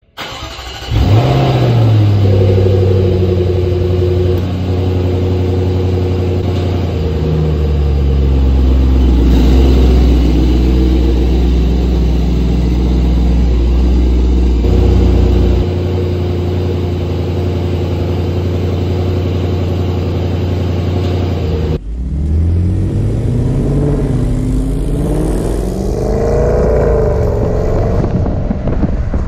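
The 5.0-litre supercharged V8 of a 2023 Jaguar F-Pace SVR starts with a short rise in revs about a second in, then idles steadily through its exhaust, its deep low note easing off about 16 seconds in. About 22 seconds in the sound cuts to the car driving, the engine revving up and down.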